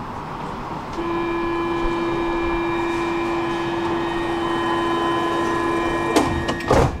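Metro train's door-closing warning: a steady tone with several overtones starts about a second in and holds for over five seconds, then the sliding doors knock shut near the end.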